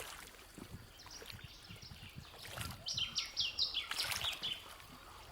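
A bird calling: a quick run of about six short high notes, each dropping in pitch, about three seconds in. Faint water and boat noise lies underneath.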